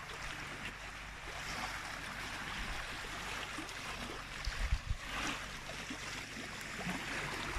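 Lake water washing and lapping against a rocky shore: a steady hiss, with a few low thumps a little past the middle.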